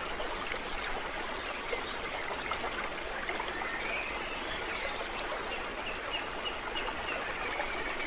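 Running water trickling and splashing steadily, with a few faint high bird chirps in the second half.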